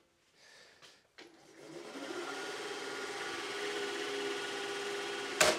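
Toro eFlex electric reel mower running its reel and freshly reassembled groomer gearbox: a steady whine with several pitches that builds up about a second in and then holds. A test run to hear whether the groomer still runs loud. A sharp click comes just before the end.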